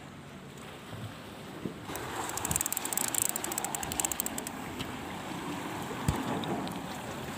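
Fishing reel ticking rapidly for about two seconds as it is worked against a hooked stingray, with a few knocks from handling the rod and phone, the sharpest about six seconds in. A steady wash of sea water runs underneath.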